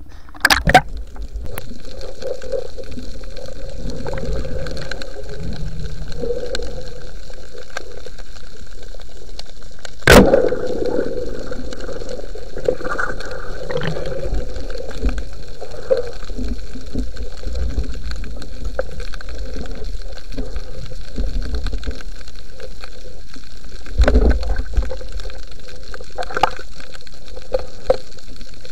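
Muffled underwater water noise on a spearfisher's diving camera, with a few sharp knocks, the loudest about ten seconds in.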